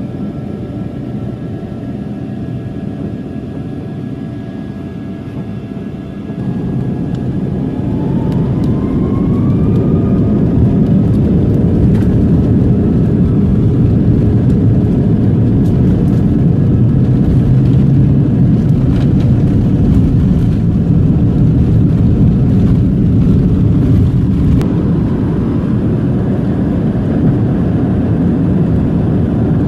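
A jet airliner's engines and takeoff roll heard from inside the cabin. A steady whine gives way, about six seconds in, to the engines spooling up to takeoff power: the whine rises in pitch and a loud low rumble builds, with scattered knocks and rattles. The rumble eases slightly near the end.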